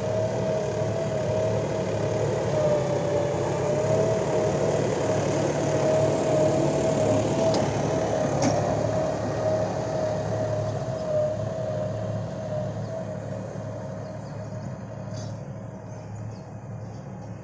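Force Motors Sanman 6000 LT tractor engine running under load as it pulls a disc harrow through grassy soil, with a steady whine over the engine note. Loudest as it passes close by about eight seconds in, then fading as it moves away.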